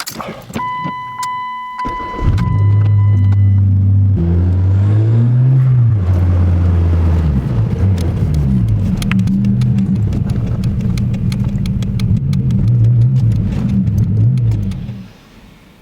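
Car engine started about two seconds in, after a steady electronic tone. It runs at idle, then revs and pulls away, its pitch rising and falling repeatedly as the car is driven, and drops off sharply near the end.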